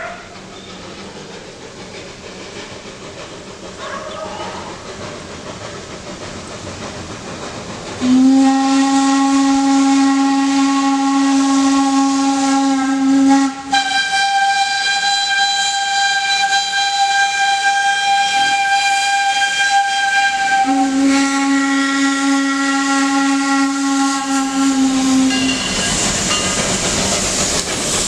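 Steam locomotive whistle blown for a level crossing in long blasts: about five seconds of a deep chord, then about seven seconds of a thinner, higher tone, then the deep chord again for about five seconds. Before it, the approaching locomotive's steam noise grows steadily louder, and after the whistle steam hiss comes in as the engine draws near.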